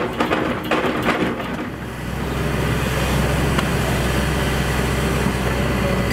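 A rapid run of knocks and clanks for about the first two seconds, then a heavy diesel engine of an excavator running steadily at a low, even pitch.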